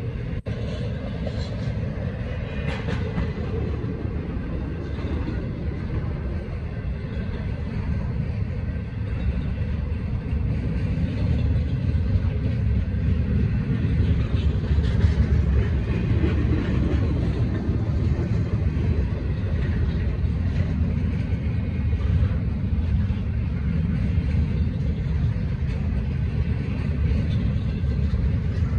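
Intermodal freight cars carrying stacked containers and trailers rolling over the crossing: a steady rumble of wheels on rail that gets a little louder about ten seconds in.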